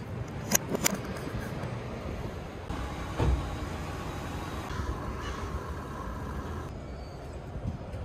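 A car driving, with steady road and engine noise; a few sharp clicks come in the first second and a thump about three seconds in.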